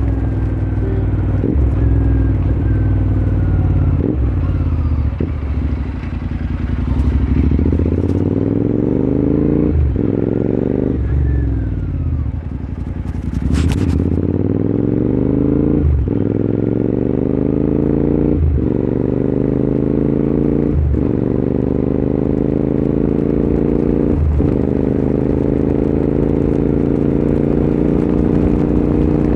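Royal Enfield Continental GT 650's parallel-twin engine through a Red Rooster aftermarket exhaust, accelerating through the gears: the exhaust note climbs in pitch, breaks briefly at each of several shifts, and climbs again. It eases off twice, about six and about twelve seconds in, and climbs to a steady note near the end.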